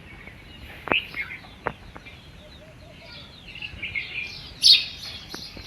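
Several garden birds chirping and twittering, with overlapping short high calls and trills, and one sharp loud call a little before the end.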